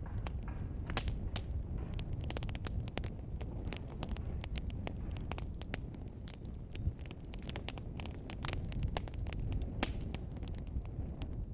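Wood fire in a fireplace crackling, with frequent sharp pops over a steady low rumble of the flames.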